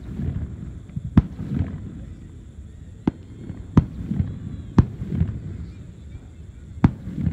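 Aerial fireworks shells bursting: about five sharp bangs, one to two seconds apart, with low rolling booms and echoes between them.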